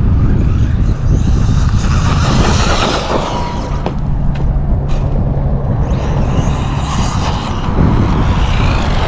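Traxxas Maxx V2 RC monster truck driving, its brushless motor and drivetrain running hard in two bursts, about a second in and again about six seconds in. A steady low rumble, like wind on the microphone, runs underneath.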